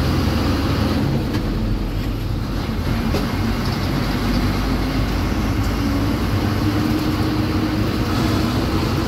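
A bus engine running under way with road noise, heard from inside the driver's cabin. The engine's tone rises slowly in pitch over the second half as the bus speeds up.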